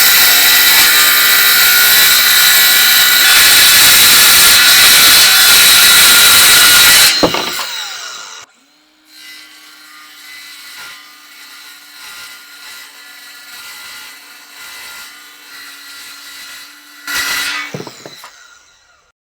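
A power saw cutting through marine okoume plywood, very loud for about seven seconds, then stopping. A much quieter stretch follows with a steady hum, a short loud burst near the end, and a fade-out.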